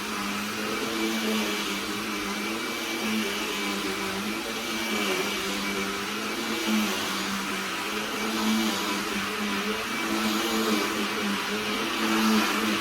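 Small handheld cordless vacuum cleaner running continuously: a steady motor hum with rushing airflow, its pitch dipping and rising slightly.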